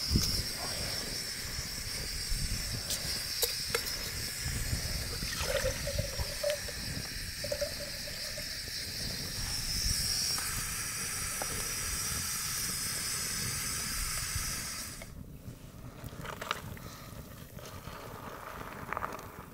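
Backpacking gas-canister stove burning with a steady hiss as it heats water, cut off suddenly about fifteen seconds in. After that, the hot water is poured into a freeze-dried meal pouch.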